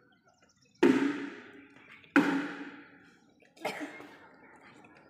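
Three separate sudden noises about a second and a half apart, each sharp at the start and fading within about a second: sounds made one by one for a listening game, for the players to identify by ear.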